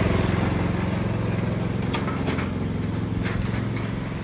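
Ride-on lawn mower's small engine running steadily as it drives past towing a trailer, slowly fading as it moves away. A few short sharp clicks come in the second half.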